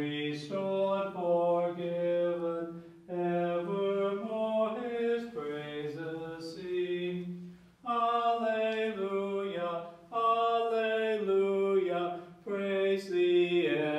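A man's voice singing a hymn unaccompanied, in slow phrases of held notes with short breaths between them.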